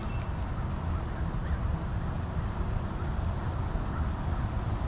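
Steady outdoor ambience: insects chirring in the background under a low rumble of wind on the microphone.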